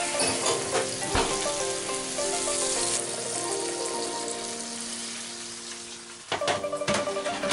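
Hot fat and juices sizzling in a stainless-steel roasting tin of chicken wings fresh from the oven, with a sharp knock about a second in and a few clattering knocks near the end. Plucked-string background music plays underneath.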